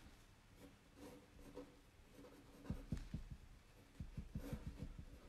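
Marker pen writing on a sheet of paper on a desk. It comes in quick runs of short strokes from about halfway through.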